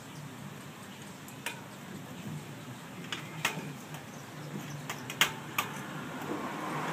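Manual wheelchair frame and quick-release rear wheel being handled and fitted on: a series of about six sharp metallic clicks and clatters, spread through the middle and later part.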